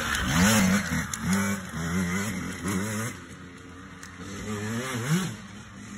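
Small youth dirt bike's engine revving up in repeated rising bursts as the bike rides away, growing fainter after about three seconds, with one more rev near the end.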